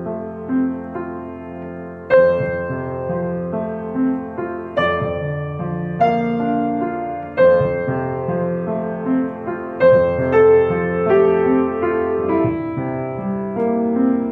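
Yamaha upright piano played with both hands: a slow piece of sustained, ringing notes over a moving bass line, with stronger accented notes every couple of seconds.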